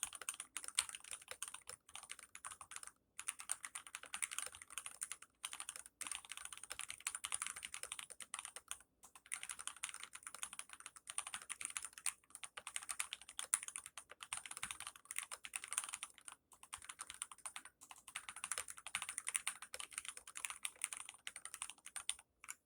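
Continuous typing on a GMMK TKL mechanical keyboard with Gateron Red linear switches, lubed with 205g0 and filmed, and neoprene foam under the PCB. Rapid key clacks come in runs of a few seconds, with short pauses between them.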